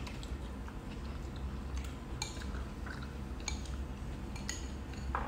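Eating sounds: chewing, and a few light clicks of a metal spoon against a ceramic soup bowl, over a low steady hum.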